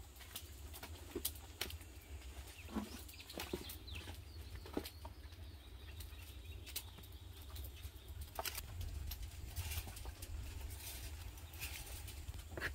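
Faint rustling and light clicks of banana leaves, foil and pieces of raw yam being handled as food is laid out in a banana-leaf parcel, over a steady low rumble.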